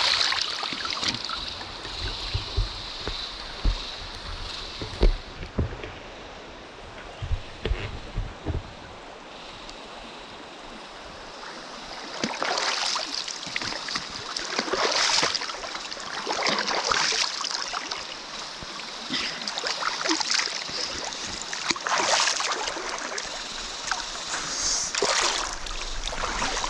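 River water flowing and splashing around a bather. There are low bumps in the first few seconds, then surges of splashing every couple of seconds through the second half.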